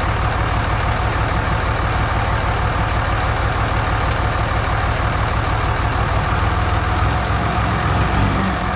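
Dodge Ram 3500's Cummins turbo-diesel engine idling steadily with an even low rumble.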